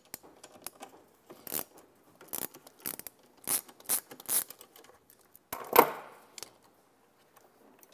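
Small metallic clicks and scrapes as the battery positive bus bar and its terminal hardware are worked loose from a golf cart's battery pack, with one louder metal clank about six seconds in.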